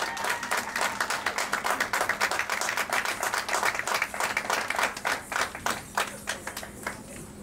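Small audience clapping, many hands at once, thinning out after about five seconds and dying away near the end.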